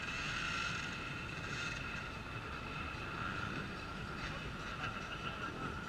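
Off-road racing motorcycle engines running, a steady high-pitched whine over a low rumble.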